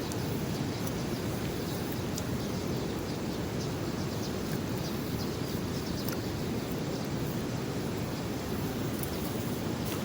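Steady rushing outdoor noise, heaviest in the low range and level throughout, with a few faint clicks.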